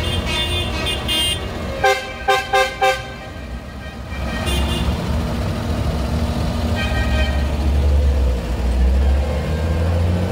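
A Fendt 828 tractor's diesel engine running with a steady low drone as it passes, louder toward the end. A vehicle horn gives four short toots about two seconds in, with a few fainter toots around it.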